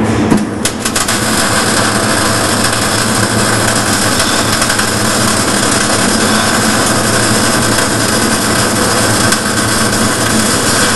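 Electric arc welding: the arc strikes right at the start with a few sharp crackles, then runs on as a loud, steady crackling hiss.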